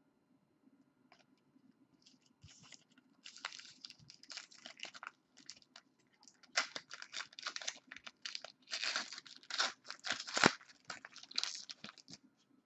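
Trading card pack wrapper being torn open and crinkled by hand: a run of irregular crackling rustles and short sharp crinkles, busiest in the second half.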